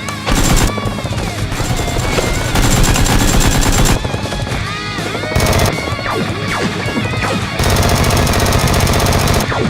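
Rapid automatic-gunfire sound effects in four bursts, the longest near the end, over background music.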